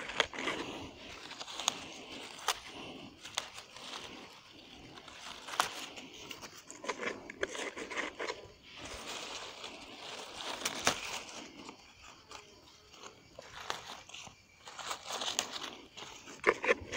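Fresh leaves being stuffed and pressed by hand into a cut-open plastic bottle, with irregular rustling and crunching and scattered sharp clicks. They form the top layer of an improvised bottle water filter, there to catch the coarsest dirt.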